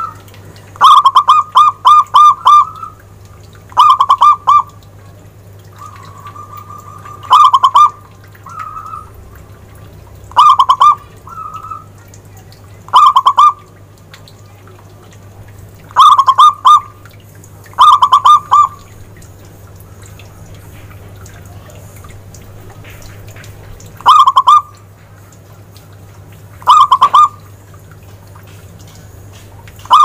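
Zebra dove (perkutut) singing: short phrases of quick, rolling staccato coos, repeated every two to three seconds with a longer pause midway. A faint steady low hum runs underneath.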